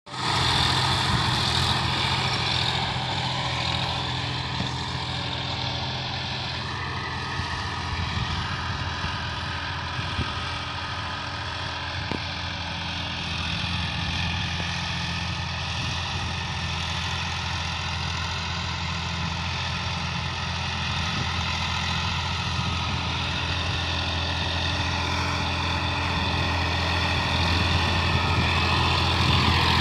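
Sonalika DI 50 RX tractor's diesel engine running steadily while pulling a rotary tiller through the soil. It grows fainter through the middle as the tractor moves away, then louder again near the end as it comes back close.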